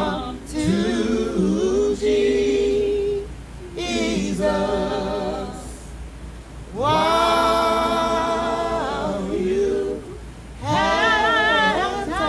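A man singing unaccompanied into a handheld microphone, in slow phrases with long held notes, one held for about two seconds around the middle, with short pauses for breath between phrases.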